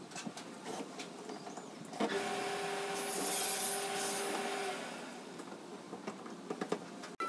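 Taiwanese plastic wardrobe doors and drawers being worked by hand. A few light knocks and clicks come first. About two seconds in, a drawer slides on its runners with a loud rubbing scrape and a steady hum for a couple of seconds. More light knocks follow near the end.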